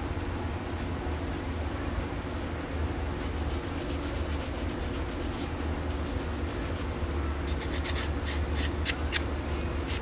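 Sanding stick rubbing the edges of a paper cut-out in quick back-and-forth strokes, about four to five a second and clearer in the second half, distressing and finishing the paper edge. A steady low hum runs underneath.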